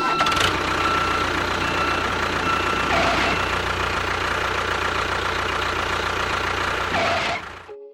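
A motor running steadily with a low hum and a faint whine, cutting off abruptly near the end.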